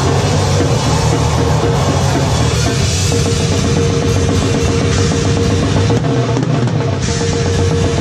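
Grindcore drumming on a drum kit: fast, unbroken snare and bass drum strokes, with heavy metal music.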